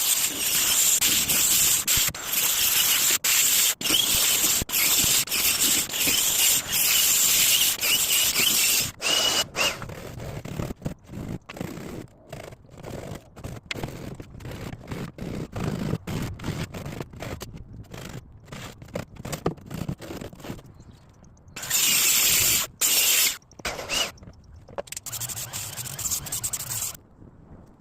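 Woodworking tool scraping on wood in two long loud stretches with a faint squeal, and between them a run of separate knocks and clicks.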